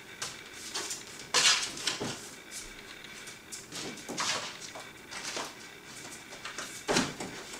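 Small hard objects clattering and knocking as they are handled and moved on a shelf, with a sharp clack about a second and a half in and another near the end.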